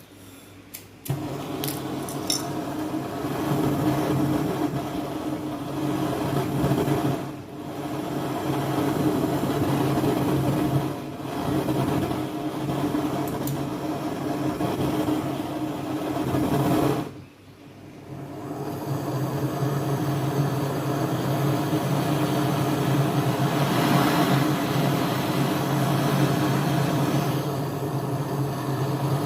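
A motor-driven tool running with a steady hum and a rasping, grinding noise. It starts about a second in and eases off briefly three times.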